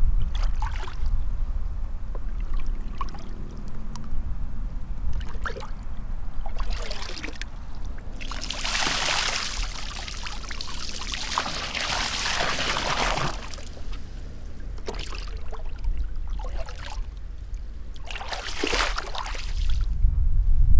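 Water poured out of a plastic basin, splashing down in a long pour lasting about five seconds and a shorter pour near the end, with a few brief splashes between. A steady low rumble runs underneath.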